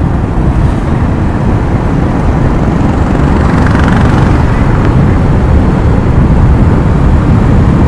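A motorcycle ridden at speed: heavy wind rumbling over the microphone, with road and engine noise under it.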